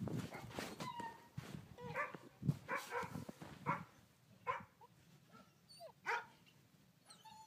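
Bernese mountain dog puppy giving a string of short barks, several close together and one more a little later.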